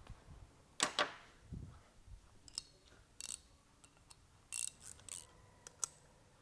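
Irregular metallic clicks and clinks of hand tools and pump parts being handled, while the set screws on the gear pump's rear cover are tightened. The sharpest clicks come about a second in, followed by a dull thud.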